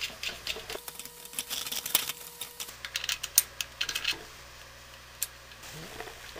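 Irregular clicks and rattles of parts being handled and fitted onto a Patton high-velocity fan's motor housing, thick for about four seconds, then one more single click.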